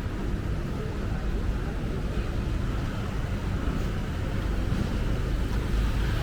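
Busy city street ambience: a steady low rumble of passing traffic.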